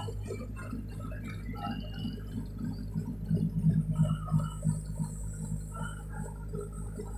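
Steady low engine drone of a river passenger boat under way, louder and rougher for a moment around the middle.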